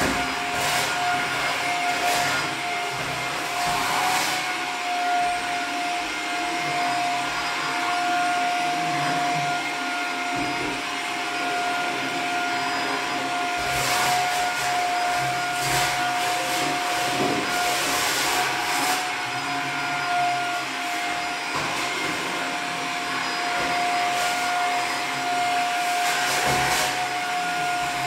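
A vacuum cleaner running steadily, its motor holding one constant whine over a noisy hiss, with a few brief knocks now and then.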